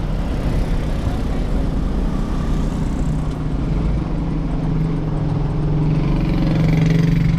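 Truck's diesel engine running steadily, its hum growing louder from about halfway through.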